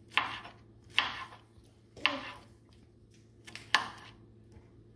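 Chef's knife slicing through tomato onto a thin plastic cutting mat. Three cuts about a second apart, then a fourth after a short pause, each a sharp tap of the blade on the mat followed by a short hiss.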